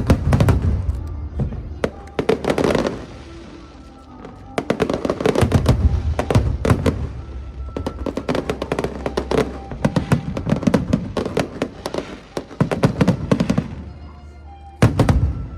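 Aerial fireworks bursting and crackling in rapid volleys, with a short lull about three seconds in and a final burst near the end. Music plays underneath.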